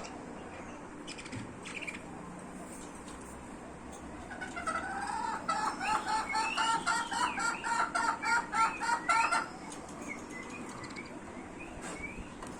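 Budgies chirping: a fast run of repeated short calls for about five seconds in the middle, then softer warbling near the end.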